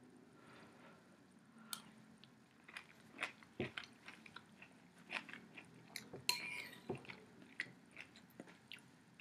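A person chewing and eating chicken soup, with scattered small wet mouth clicks and smacks, a few louder ones midway.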